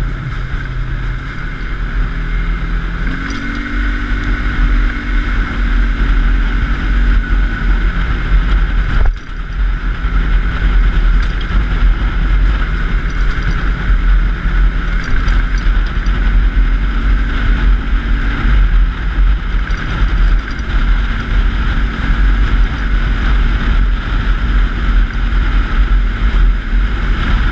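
An engine running steadily under way, with wind on the microphone; it revs up about three seconds in, and the sound briefly dips near nine seconds.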